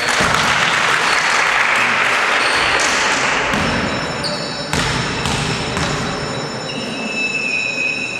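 A basketball bouncing a few times on a gym floor, knocks echoing in a large sports hall, among voices and hall noise that are loudest in the first few seconds.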